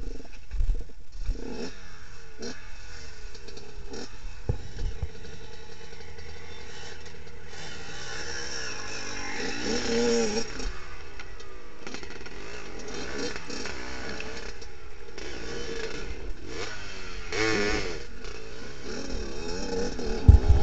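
Dirt bike engine running at a standstill on a steep rocky climb, with the throttle opened in two rising revs about halfway through and again near the end. Knocks and clatter of the bike and stones are heard as it is wrestled on the slope, with a loud thump just before the end.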